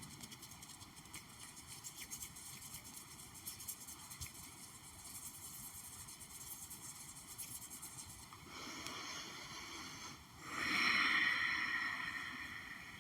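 Light, quick tapping and clicking of fingertips and nails on objects, used as an ASMR trigger. About two-thirds of the way through this gives way to a soft rustling that swells louder for a couple of seconds, then fades.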